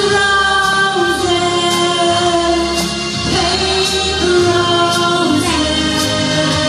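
A woman singing into a handheld microphone over a karaoke backing track, holding long, steady notes.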